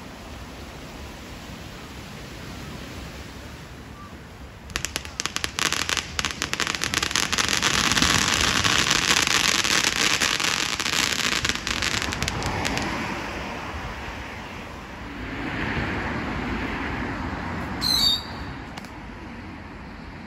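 Fireworks going off at ground level: a rapid run of sharp cracks starts about five seconds in and thickens into a dense crackle with a loud hiss, then fades away. A brief high whistle comes near the end.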